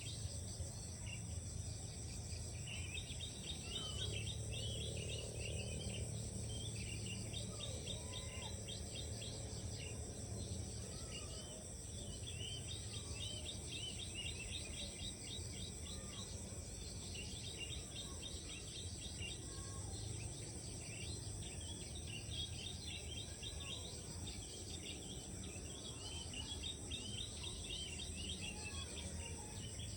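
Birds singing phrases of quick repeated notes over and over, against a steady high-pitched insect drone and a low background rumble.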